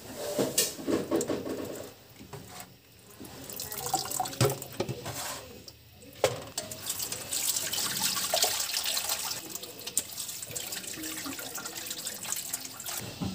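Water splashing and pouring in a stainless steel sink as chopped banana flower is rinsed in a steel bowl and drained through a plastic strainer, with scattered clinks and splashes. The washing clears off the rice water it was soaked in.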